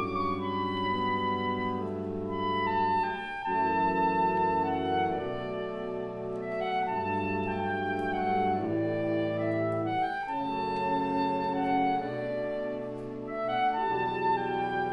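Background music: wind instruments playing held chords together, the chord changing about every second and a half to two seconds, with no drums.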